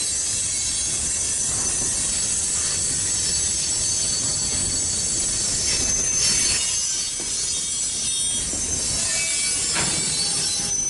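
Freight train of covered grain hopper cars rolling past, steel wheels on the rails with a thin, high-pitched squeal and a few clicks.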